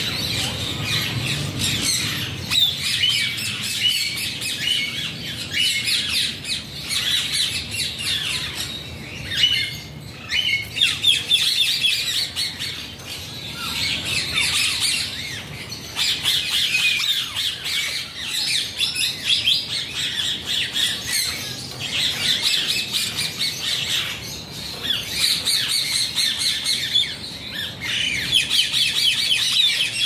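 A flock of parakeets chattering and squawking, with many short, high calls overlapping without a break, easing briefly about a third of the way in.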